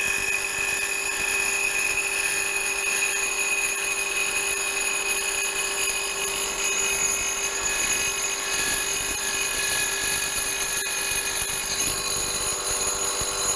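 Bridgeport milling machine spindle running a slitting saw that is being fed slowly by hand into an aluminum part, cutting a slot. It is a steady whine made of one mid-pitched tone and several high tones.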